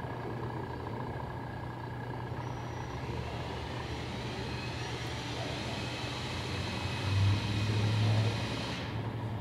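Steady low rumbling hum with a noisy background wash, swelling briefly about seven seconds in.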